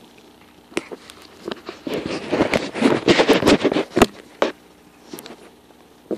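Close rustling and scuffling of dogs playing on bedding, heaviest in the middle, with several sharp clicks.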